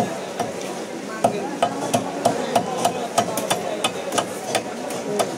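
Rapid sharp knocks, about three a second, as a large snakehead is hacked and pressed through on a curved floor-mounted boti blade. Voices murmur behind.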